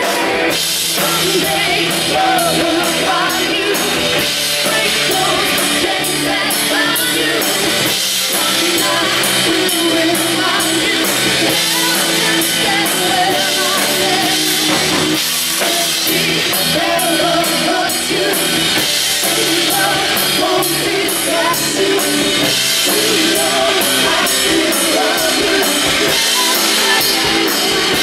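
Live rock band playing: a woman singing lead into a microphone over amplified electric guitars and a drum kit, with a steady beat.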